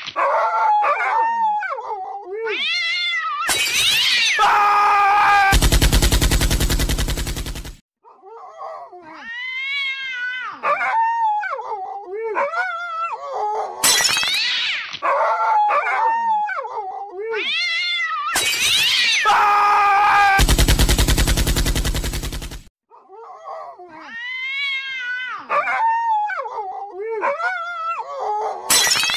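Loud animal yowls that glide up and down in pitch, broken twice by a harsh buzzing stretch of about two seconds. The same sequence repeats about every 15 seconds as a looped sound track.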